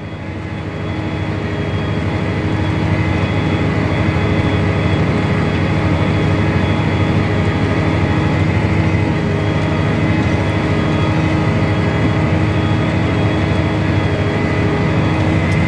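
Farm tractor's diesel engine running steadily under load as it pulls a plow through the field, heard from inside the cab. It grows a little louder over the first couple of seconds, then holds an even drone.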